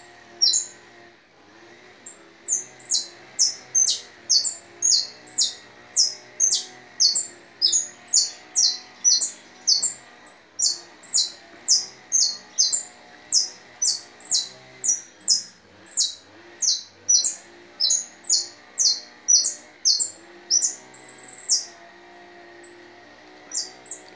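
A caged yellow songbird, kept as a song tutor for young birds, singing a long run of sharp, high, down-slurred notes at about two a second, with a longer held high note near the end.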